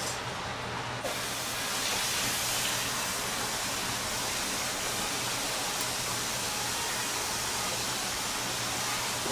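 Steady kitchen machinery noise: an even, fairly loud hiss over a low electrical hum.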